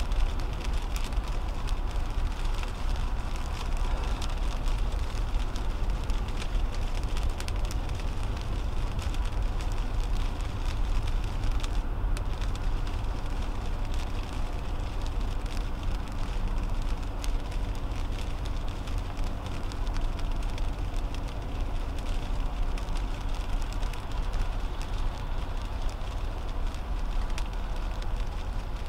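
Cabin road noise of a 2010 Toyota Camry at highway speed in rain: a steady low rumble and hiss of tyres on wet pavement, with many small raindrop ticks on the windshield.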